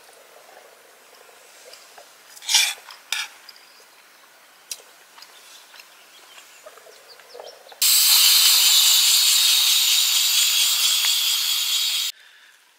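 A few light knocks from a spoon in a metal camping mug, then air rushing out of an inflatable sleeping mat's valve as it is pressed flat: a loud, steady hiss of about four seconds that stops suddenly.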